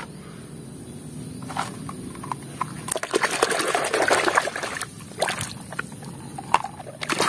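Water sloshing and splashing as a hand scrubs small plastic toys in a basin of muddy, sudsy water, loudest about three to five seconds in, with a few short knocks of plastic.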